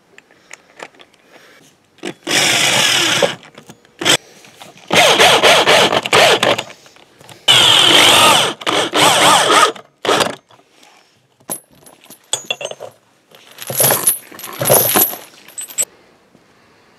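Electric drill fitted with a socket adapter, run in several bursts of one to two seconds with short pauses, driving the bolts that fix a welded steel ground anchor in place.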